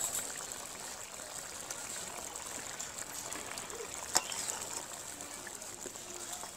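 Kofta curry bubbling at a boil in a steel kadai, stirred with a spatula, with one sharp knock on the pan about four seconds in.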